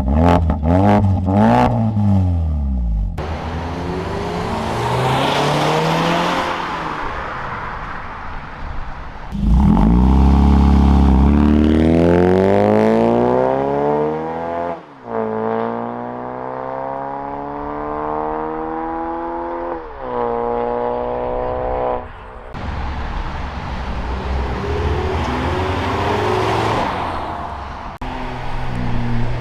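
A 2019+ Mazda 3's four-cylinder engine being revved and accelerating through its exhaust, recorded on a phone microphone. A few quick rev blips at the start; later the note climbs steadily, drops sharply at a shift about fifteen seconds in, climbs again, then settles to a steadier run.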